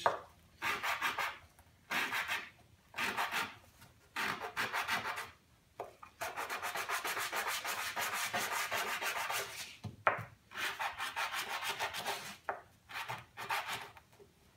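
Oak-topped wooden bottle stopper rubbed back and forth by hand on a sheet of sandpaper laid flat, sanding down the rough edges of the glued-on top. Quick scratchy strokes come in short bouts, with a longer unbroken run of strokes in the middle.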